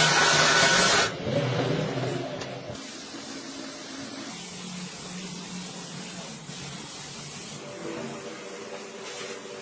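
Loud spray hissing that cuts off suddenly about a second in, followed by a quieter steady low hum.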